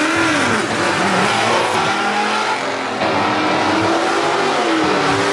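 Drag-racing car engine revving hard under acceleration, its pitch rising and falling several times.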